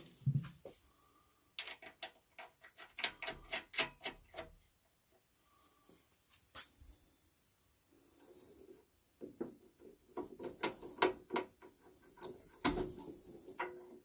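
Two bursts of quick small clicks and knocks from hands working at the rubber-booted ignition lead and fittings on the burner cover of a Vaillant wall-mounted gas boiler.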